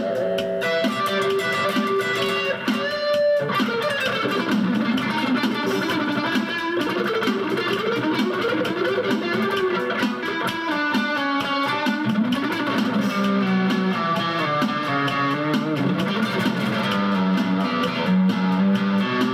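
Electric guitar played through a Chinese Alnico pickup in the bridge position, picking a lead melody with bent notes and vibrato.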